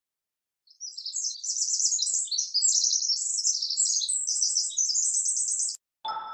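Small birds chirping and twittering in rapid high trills, cutting off abruptly near the end, followed by a short bell-like ding that rings and fades.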